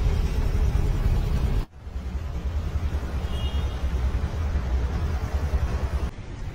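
Steady low outdoor rumble, with a sudden brief drop just under two seconds in.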